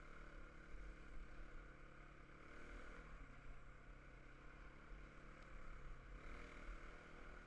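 Quad bike engine running faintly at a steady cruising pace over a low rumble, its note shifting slightly about three seconds in and again near six seconds.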